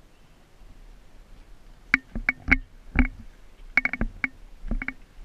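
Airsoft electric rifle firing a string of single shots, sharp snapping pops that start about two seconds in and come unevenly, some in quick clusters of two or three, with a faint gearbox whir under some of them.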